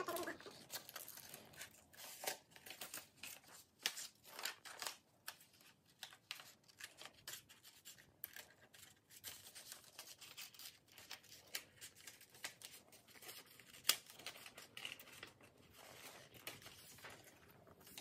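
Small green-handled scissors snipping through thin green paper, a faint, irregular run of short cuts as circles are cut out of the sheet, with one sharper click about 14 seconds in.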